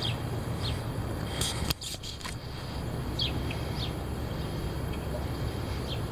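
Wind buffeting the microphone as a steady low rumble, with short high bird chirps every second or so and one sharp click just under two seconds in.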